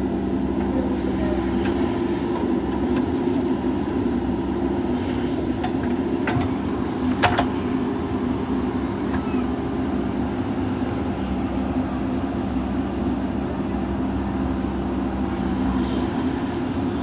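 JCB 3DX backhoe loader's diesel engine running steadily under working load, with a couple of sharp knocks about six and seven seconds in.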